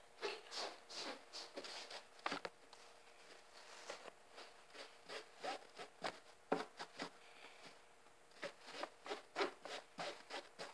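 Hands rubbing a cloth tablecloth, scrubbing at a stain to get it out: a run of short, faint, irregular rubbing strokes with brief pauses.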